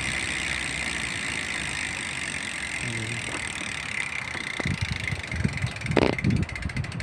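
Bicycle rear hub freewheel (SRAM X9) buzzing as the spun wheel coasts, the rapid pawl clicking slowing down until single clicks can be heard near the end. A few dull knocks from handling the bike come in the second half.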